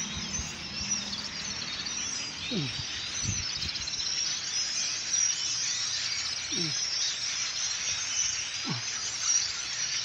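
A large flock of small birds massed in a tree, many calls overlapping into a constant high chatter. A few short, low notes slide downward now and then.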